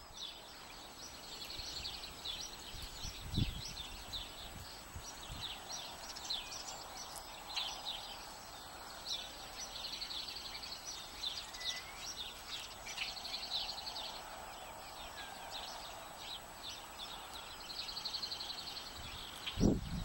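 House sparrows chirping: a steady chatter of many short, high chirps in quick succession.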